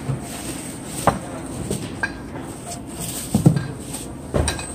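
Supermarket checkout background noise, with a few knocks and thumps of groceries and bags being handled; the loudest comes near the end.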